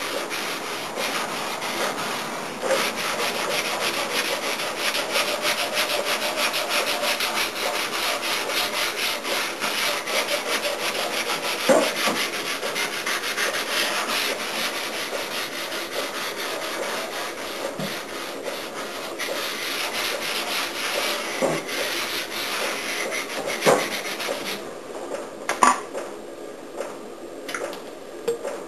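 Sandpaper rubbing steadily back and forth over a car body panel in rapid strokes, with a few sharp knocks; the sanding eases off in the last few seconds.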